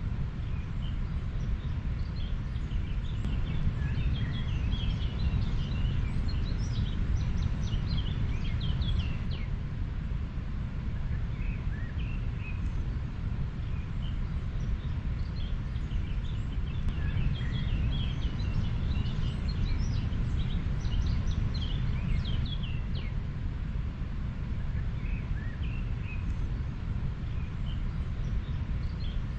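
A river flowing with a steady low rushing noise. Small birds chirp in quick runs of high notes over it, busiest from about four to nine seconds in and again from about sixteen to twenty-three seconds.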